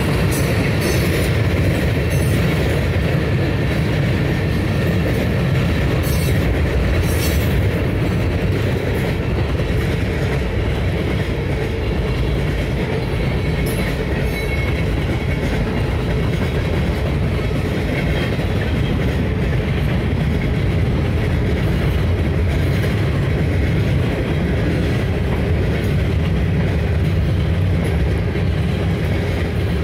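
Freight train cars rolling past on steel rail: a steady low rumble of wheels on track with some clicking and clatter.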